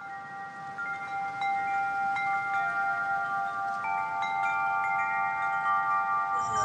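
Chimes ringing: clear bell-like notes struck one after another and left to ring on, overlapping, growing louder over the first second.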